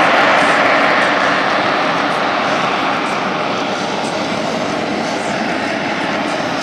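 Jet aircraft flying low past the crowd, its engine noise a steady loud rush that eases off over the first few seconds and then holds.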